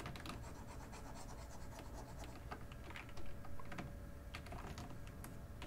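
Faint, scattered clicks of a computer keyboard and mouse being worked, over a faint steady hum.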